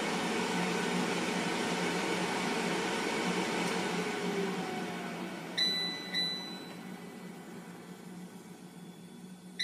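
Philips Airfryer XL's fan running steadily, then slowing down with a falling whine as the cooking timer runs out. Just past halfway the fryer chimes two dings about half a second apart, the signal that the cooking time is up, and another pair of dings starts at the very end.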